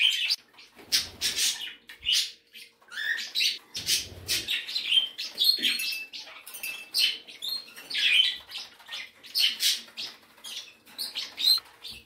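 A mixed flock of pet budgerigars and other small parrots chirping and squawking, with many short calls following one another: a very noisy bird room.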